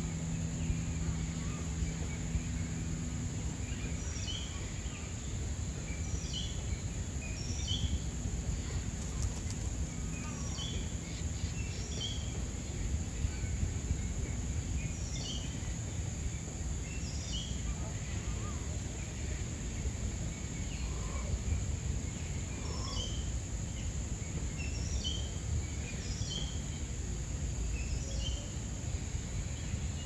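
Outdoor ambience: a steady high-pitched insect drone and short falling chirps from small birds, repeated every second or two, over a low rumbling background. A low hum stops about four seconds in.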